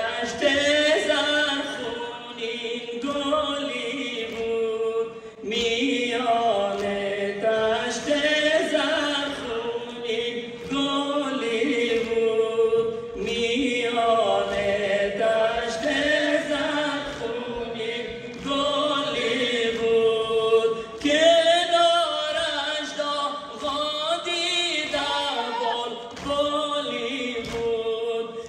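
A noha, a Shia Muharram lament, chanted by a group of voices to a slow melody in long phrases with short breaks between them.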